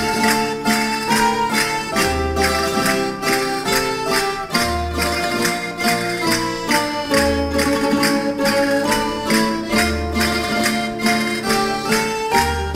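Traditional Valencian folk dance music played live by a rondalla of bandurrias, laúds and guitars with an accordion: a brisk strummed rhythm of about four strokes a second under a melody, with a low bass note recurring every two to three seconds.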